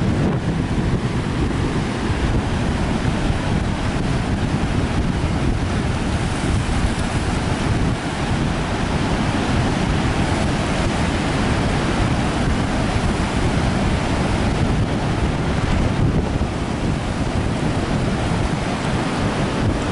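Stormy Baltic surf breaking on a sandy shore: a steady rush of waves, with strong wind buffeting the microphone.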